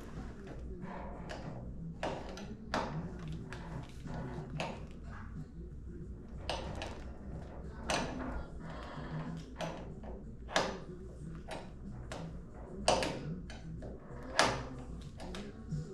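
Irregular knocks and clicks of objects being handled, over a low steady hum; the two loudest knocks come near the end.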